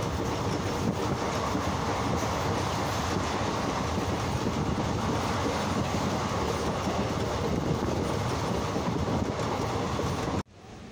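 Passenger coach of an express train running through a station, with a steady loud rumble and rattle of wheels on the rails, heard at an open door or window. Near the end it cuts off suddenly to a much quieter rush.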